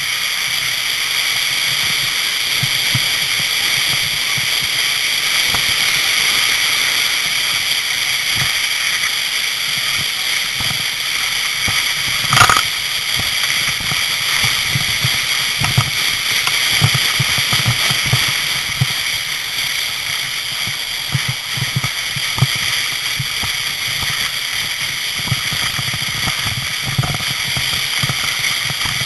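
Plastic sleds sliding fast down a snowy slope: a steady rushing hiss and scrape of snow, broken by irregular low bumps. About twelve seconds in there is one sharp knock.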